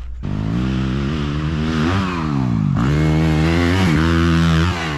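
Dirt bike engine revving hard and easing off as it is ridden in a wheelie attempt. Its pitch climbs, sags low about 2.5 s in, climbs again and drops near the end.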